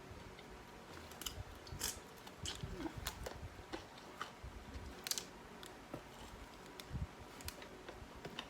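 A person eating close to the microphone: soft chewing with irregular small wet mouth clicks and smacks.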